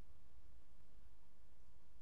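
Steady low hum with a faint, even hiss above it, and no distinct sounds.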